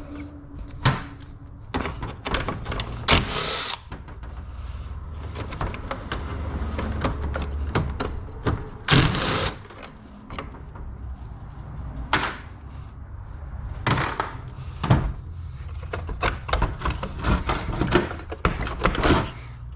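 A cordless impact driver runs in two short bursts, about three seconds in and again about nine seconds in, backing out fasteners on a radiator fan shroud. Between the bursts come repeated clunks and knocks of plastic and metal parts being handled.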